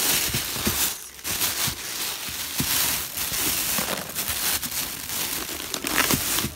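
Thin plastic bag lining a cardboard delivery box crinkling and rustling as hands rummage through it and the wrapped rice-cake packets inside, dipping briefly about a second in.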